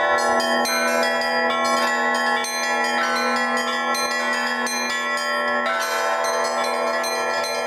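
Russian Orthodox church bells rung in a rhythmic peal by a single bell-ringer: small bells struck in quick, frequent strokes over the long sustained ring of the larger bells.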